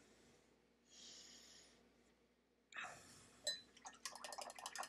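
Faint breathing near the microphone, then a sharp click and a quick run of small scratching clicks, about seven a second, from a plastic miniature sprue being handled and worked.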